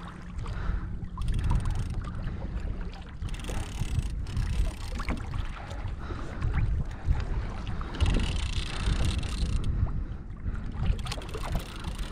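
Gusty wind buffeting the microphone over water lapping against a sit-on-top fishing kayak's hull, with scattered small knocks and a louder hiss about eight seconds in.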